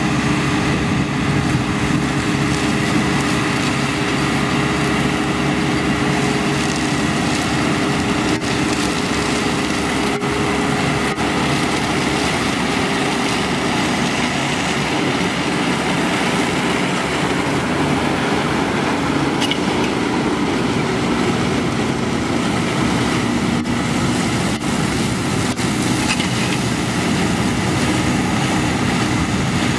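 A tractor and square baler with a straw-crushing flail rotor running steadily at work: engine and machinery noise.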